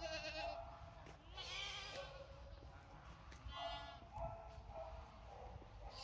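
An animal bleating: several short calls with a quivering, wavering pitch, a second or two apart.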